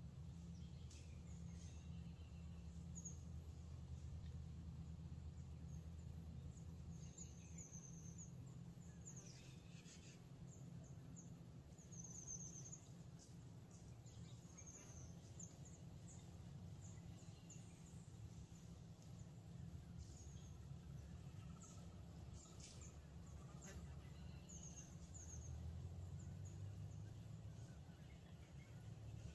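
Faint, high chirps of small birds every few seconds over a steady low rumble of outdoor ambience.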